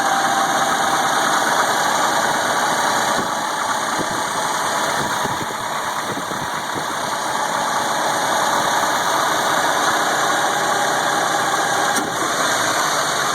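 Suzuki J20A 2.0-litre four-cylinder engine running, with a steady hissing 'soplido' (blowing sound) over the engine that the owner cannot trace.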